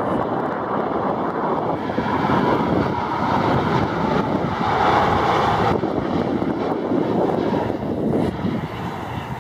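Boeing 787 airliner's jet engines on landing approach, gear down, passing close overhead: a steady jet rumble with a whine that builds to its loudest about five seconds in, then drops away suddenly. Wind buffets the microphone.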